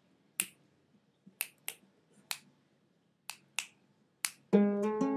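Finger snaps keeping time, about seven of them in a loose rhythm, then an acoustic guitar starts strumming chords about four and a half seconds in.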